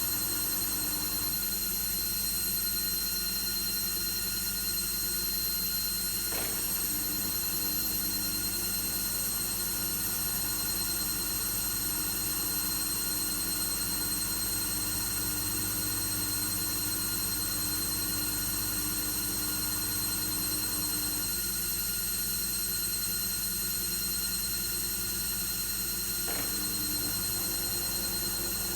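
Logik L712WM23 washing machine running, a steady whine made of several high tones. Under it a lower motor hum drops out briefly about six seconds in and again for several seconds past the twenty-second mark, with a faint click at each change.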